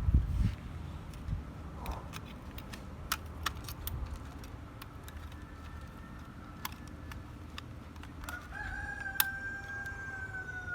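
A rooster crows once near the end, one long call that falls slightly at its close. Scattered clicks and knocks, with a thump at the start.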